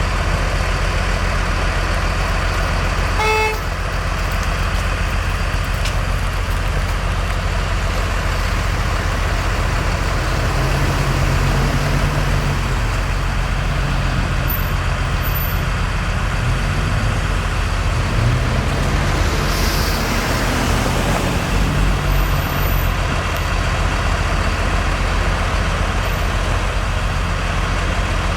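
Heavy vehicle engines and road traffic running steadily, with one engine's pitch rising and falling in the middle stretch as it works. A short horn toot sounds about three seconds in.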